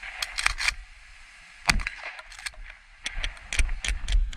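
Shotgun firing a rifle slug: one sharp shot a little under two seconds in. It is followed by a quick cluster of sharp knocks and clicks in the last second and a half.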